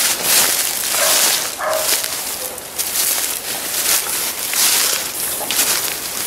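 Hunting dogs barking faintly, a couple of short barks about a second in, over a steady rushing hiss.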